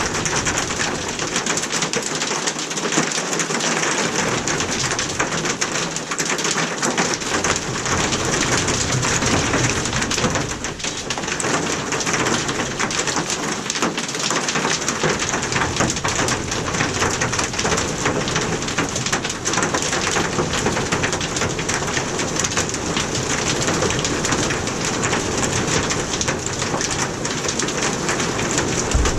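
Hail and rain pelting down steadily, a dense mass of small impacts that keeps up without a break.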